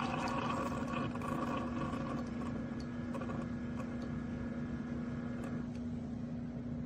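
Keurig K-Slim single-serve coffee maker brewing: its pump gives a steady hum while the stream of coffee splashes into the cup, the splashing thinning out after a couple of seconds.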